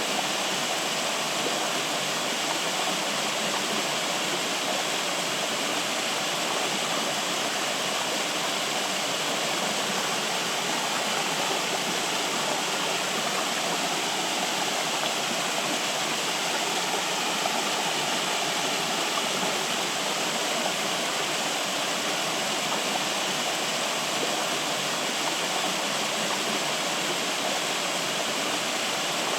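Flowing water, a steady even rush like a stream or small waterfall, without change.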